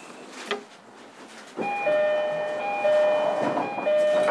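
A train horn sounding a steady multi-tone chord for about three seconds, starting about one and a half seconds in, heard from inside an electric train car.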